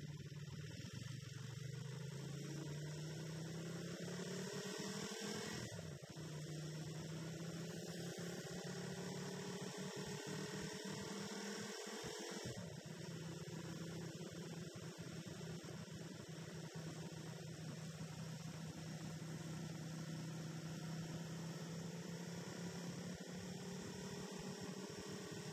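Motorcycle engine running under way, a steady hum picked up by a camera mounted on the bike; its pitch rises slowly about four to six seconds in and shifts again about twelve seconds in.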